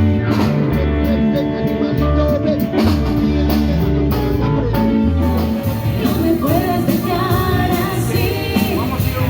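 Music with singing over a pulsing bass line; the sound changes to a denser mix about five seconds in.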